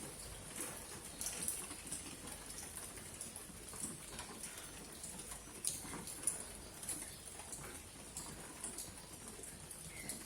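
Rain falling, with irregular drops pattering and dripping through a steady hiss. Two louder drips land a little after the middle.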